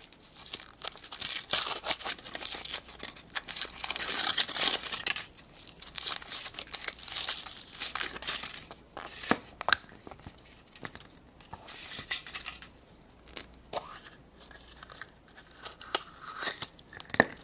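The wrapping of a toy surprise egg being torn open and crinkled by hand: a dense stretch of tearing and rustling, then quieter rustles with a few sharp light clicks as the egg is handled.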